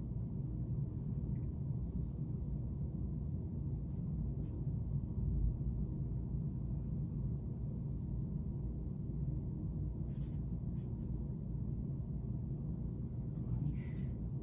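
Steady low background rumble, with a few faint short sounds about ten seconds in and again near the end.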